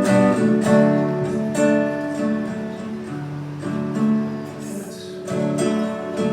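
Acoustic guitar strummed in an instrumental passage of a song, chords ringing out with a fresh strum roughly every second.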